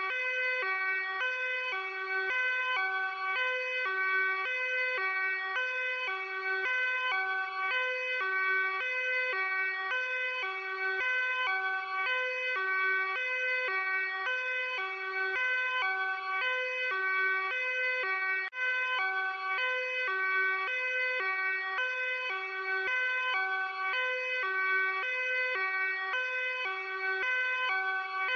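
Luxembourg police two-tone hi-lo siren, switching steadily between a low and a high pitch about twice a second.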